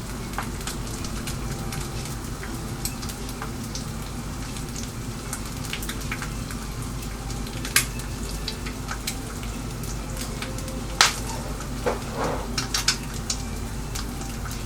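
Eggs frying in a pan in olive oil and butter: a steady sizzle with many small crackling pops throughout, and a couple of sharper clicks about 8 and 11 seconds in.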